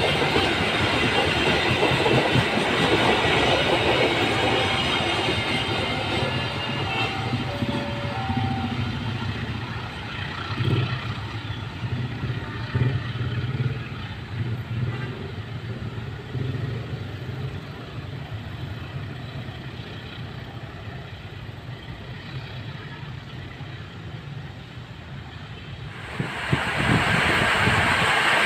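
Passenger train coaches rolling past on a curved track, wheels clattering over the rail joints, then fading slowly as the train draws away. A steady hiss comes in abruptly near the end.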